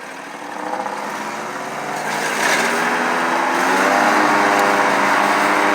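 Country Clipper riding mower's engine running just after starting, throttled up in two steps, about half a second and about two and a half seconds in, and then holding a steady, higher speed.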